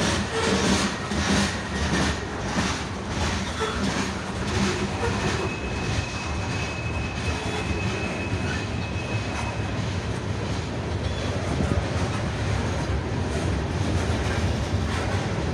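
Freight cars rolling past close by: steel wheels clacking over rail joints about twice a second at first, over a steady rumble, with a faint high wheel squeal for a few seconds midway.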